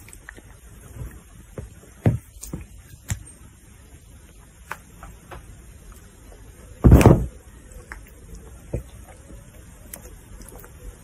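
Close handling noise: a long-haired cat's fur and a person's hair rubbing against the recording phone, with scattered soft clicks and rustles and one loud thump about seven seconds in.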